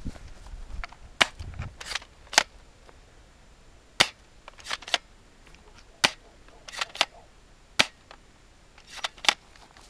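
Airsoft gun firing single shots: about a dozen sharp cracks, some alone and some in quick pairs, spaced irregularly.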